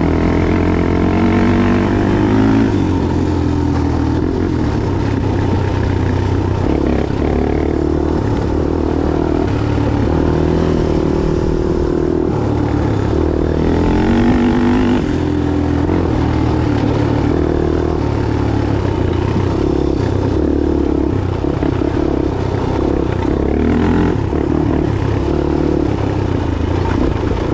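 Single-cylinder off-road engine being ridden hard on a trail, its revs rising and falling again and again as the throttle is worked.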